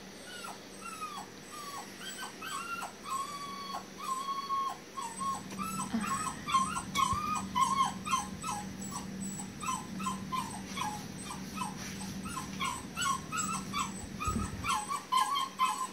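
Kitten crying in distress while a cuterebra (botfly) larva is pulled from its nostril with forceps: a rapid series of short mews, each dropping in pitch, coming faster after about six seconds.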